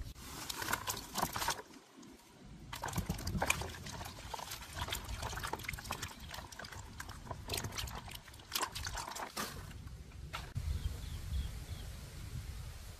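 Water sloshing and splashing in irregular short bursts, with a brief pause about two seconds in. The splashing stops about ten and a half seconds in, leaving a low rumble.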